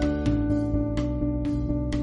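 Background music with a plucked guitar, notes held and changing every half second or so.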